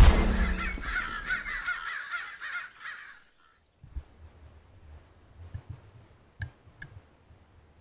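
A sudden loud hit, then a quick run of harsh, repeated animal calls that fade out over about three seconds. After that come faint low knocks and two short sharp clicks.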